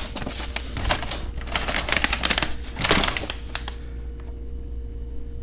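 Packaging crinkling and rustling as unboxed parts are handled, a rapid run of crackles and clicks that stops nearly four seconds in, leaving a low steady hum.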